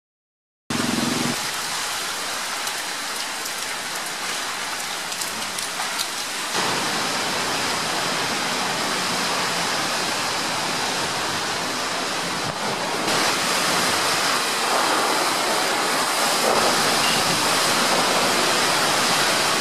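Heavy typhoon rain with wind, a steady rushing noise. It starts after a moment of silence and shifts slightly about six and thirteen seconds in.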